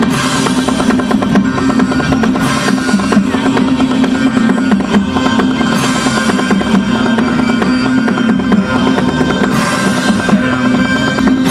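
Loud, drum-heavy music playing without a break, with cymbal-like crashes every few seconds.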